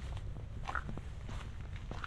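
Footsteps on a rainforest walking trail at a steady walking pace, about three steps, over a steady low rumble.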